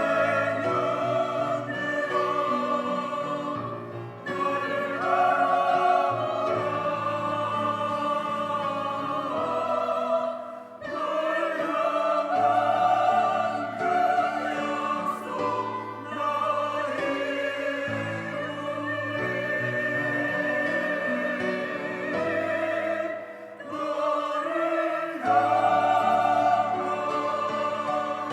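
Church choir singing a slow anthem in long sustained phrases over a held low accompaniment, with brief pauses between phrases.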